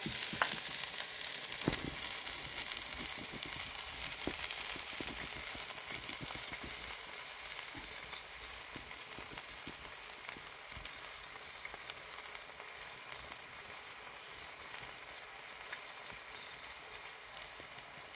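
Pieces of beef steak sizzling in oil in a pot just after a stir, with scattered small pops, growing slowly quieter as the fresh meat gives off its own juice.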